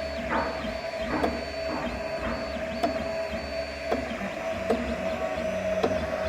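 3D printer extruder's feeder stepper motor clicking irregularly, about one or two sharp clicks a second, over the steady whine of the printer's motors. The clicks are the feeder stepper skipping steps or turning back, so too little filament is fed.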